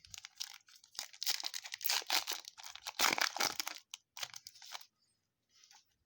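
A foil trading-card pack wrapper being torn open and crinkled, a run of crackling rustles that thins out about a second before the end.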